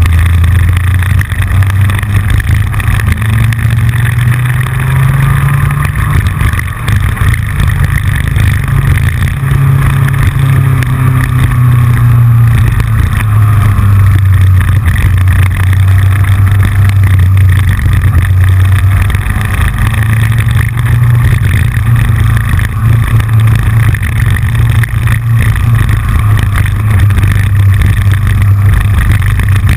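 Yamaha FJR1300 inline-four motorcycle engine running at road speed, its note rising and falling a little through the curves. Over it, a constant clicking from the GoPro camera rattling on its fairing mount, which is not secure enough.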